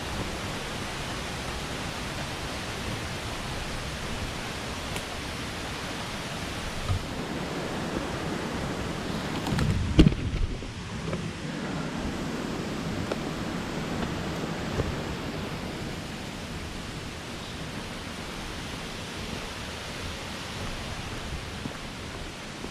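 Steady rush of water from a mountain stream and waterfall in a rocky gorge, with one sharp knock about ten seconds in.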